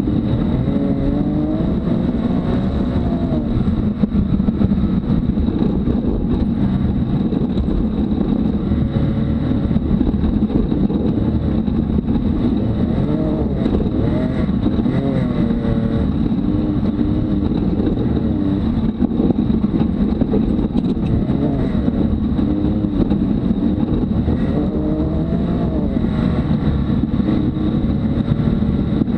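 Can-Am Maverick X3 side-by-side's turbocharged three-cylinder engine running under way, heard from inside the open cab, its pitch rising and falling again and again with the throttle. Underneath is a steady low rumble of tyres and chassis over a dirt trail.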